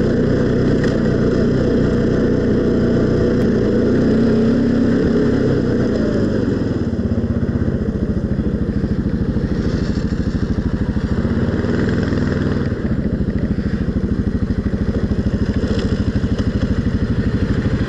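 ATV engine running while riding, its revs dropping about six seconds in to a slower, pulsing run.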